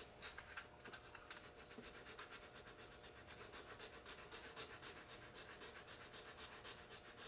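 Faint, rapid, even strokes of 180-grit sandpaper scratching back and forth by hand over filler putty on a plastic model kit's seam.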